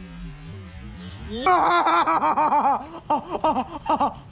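A faint low rumble, then from about a second and a half in a man's excited, high-pitched laughing whoops in quick repeated bursts.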